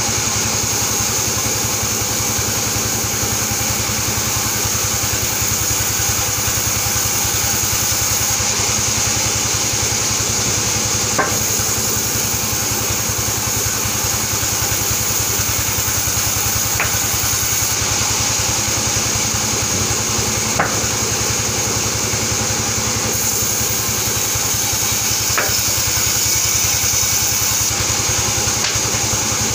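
Large sawmill band saw running steadily while albizia boards are fed through and ripped into lumber, with a few sharp clicks along the way.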